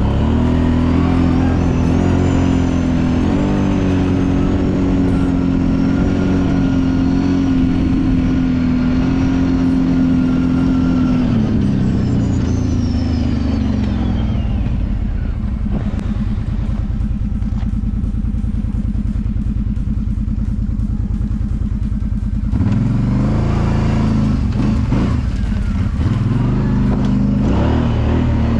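Kawasaki Brute Force 750 ATV's V-twin engine running at steady revs, easing off about eleven seconds in to a low, evenly pulsing engine speed, then revving back up about twenty-two seconds in.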